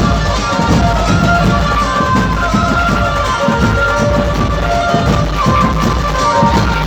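Loud music: a held melody line over heavy, pulsing bass.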